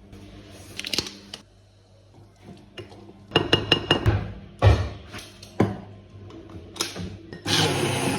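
Dishes and kitchen utensils clinking and knocking, with a quick run of sharp clinks about three seconds in and a louder stretch of scraping noise near the end.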